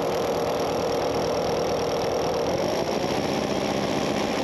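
Parkside Performance 20 V cordless rotary hammer drilling into a rendered wall, its hammer action rattling steadily. The motor pitch rises slightly about halfway through.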